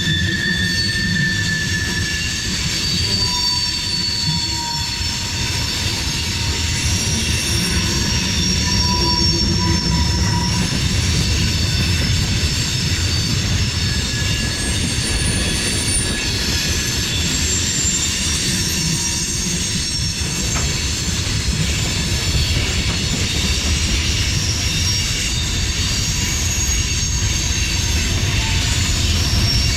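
Freight cars of a CSX manifest train rolling past: a steady rumble of steel wheels on rail, with thin high-pitched wheel squeals coming and going throughout.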